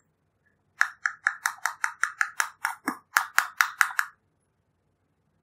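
A quick run of about sixteen light taps, roughly five a second, as a small silicone coin purse is tapped to shake glitter out of it. One tap near the middle is duller and lower.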